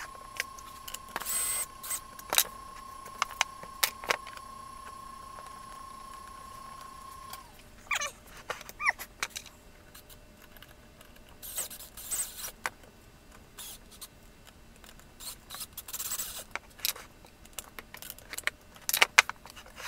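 Light clicks, taps and knocks of wooden model parts being handled and fitted together, with a few short bursts of noise. A steady high tone runs underneath and stops about seven seconds in.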